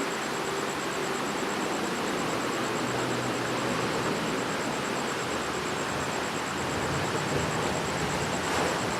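Waterfall's falling water rushing steadily.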